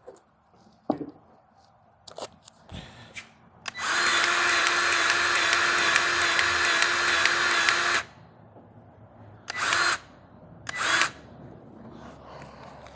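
Cordless battery-powered grease gun motor running for about four seconds, pumping grease into a zerk fitting on a mini excavator, with a steady whine, then two short bursts of the motor about a second apart. Light clicks of handling the gun come before it.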